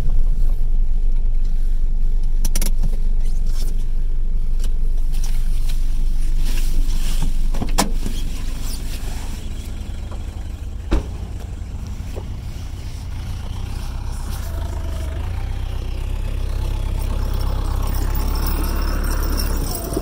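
Car driving, heard as a steady low rumble with a few sharp knocks, the loudest about eleven seconds in. The rumble drops about halfway through, then slowly builds again.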